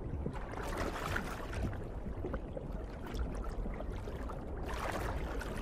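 Underwater water ambience: a soft, steady watery rush and gurgle that swells about a second in and again near the end.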